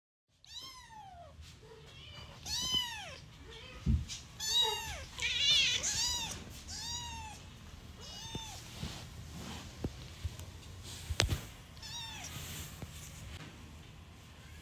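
Newborn kittens mewing: thin, high cries that rise and fall in pitch, about eight of them, most in the first half and overlapping for a moment. Two sharp knocks come in between, the louder one later on.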